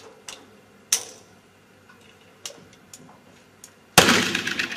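A few light clicks, then about four seconds in a single black-powder pistol shot: a loud, sudden bang that dies away over most of a second.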